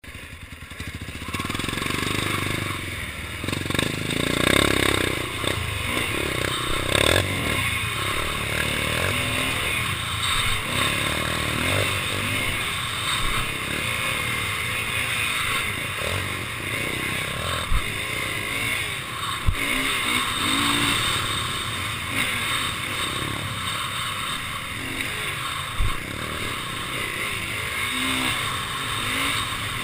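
Dirt bike engine revving up and down while riding across sand dunes, under a steady rushing noise. There are three sharp knocks in the second half.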